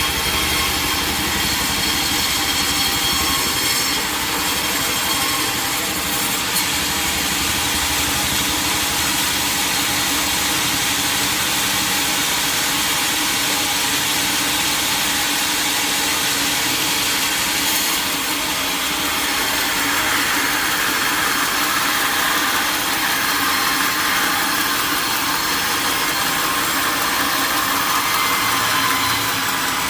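Sawmill saw running steadily and cutting teak timber, its pitch shifting about two-thirds of the way through.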